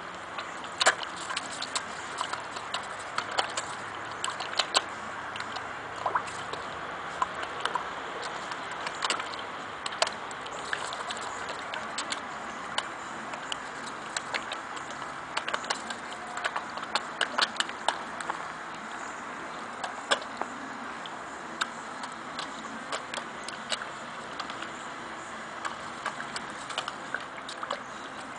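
Koi smacking and slurping at the water surface as they bite at a floating food ball: irregular sharp clicks and smacks, several a second and some much louder, over a steady watery hiss.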